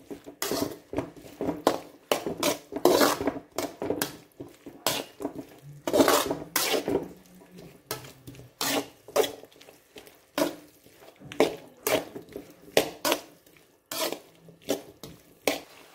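A spoon knocking and scraping against a pan in repeated strokes, about two a second, stirring onions and tomatoes as they sauté.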